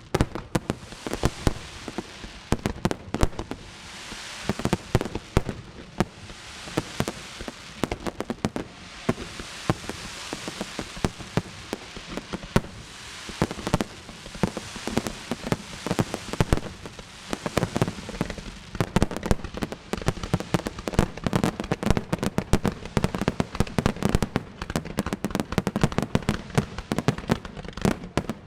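Fireworks going off in quick, irregular succession: many sharp bangs and booms overlapping with crackling between them.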